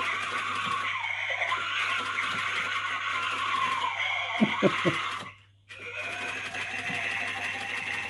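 Small electric motor in an animated gargoyle Halloween prop whirring as it flaps its bat wings, with a few knocks about four and a half seconds in. The sound cuts out completely for a moment just after, then the whirring carries on.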